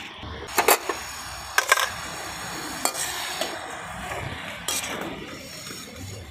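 Strands of sitabhog dough sizzling steadily in hot oil in an aluminium kadai. A slotted metal skimmer clinks against the pan about six times as the strands are stirred and lifted, loudest in the first two seconds.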